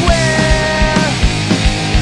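Rock music with a driving drum beat and distorted guitars.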